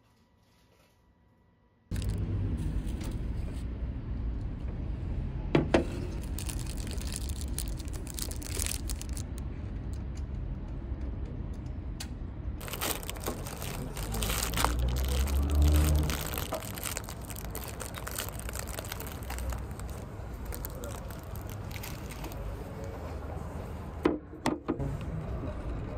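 Near silence for about two seconds, then steady outdoor city ambience: a low hum of traffic with faint voices in the background, swelling briefly in the middle. Near the end, a couple of short sharp knocks as a takeaway cup is handled at the table.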